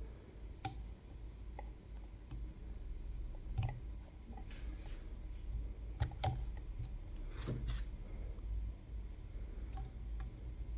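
Light, scattered clicks and taps of a lock pick and tension wrench working the pin stacks of a CISA AP3 lock, at irregular intervals, over a faint steady hum.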